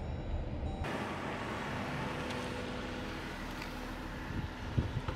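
Dodge Durango being driven, with low road and engine rumble inside the cabin for about a second. After a sudden change it becomes a steady outdoor hiss, with a few light knocks near the end.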